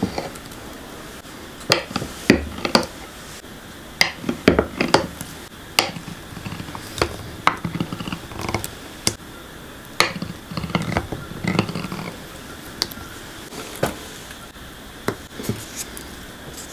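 Kitchen knife cutting through soft warabi mochi and knocking down onto a cutting board: irregular sharp taps and clicks, some in quick pairs.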